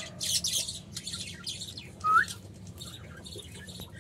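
Birds chirping in quick high bursts, with one clear rising whistled note about two seconds in.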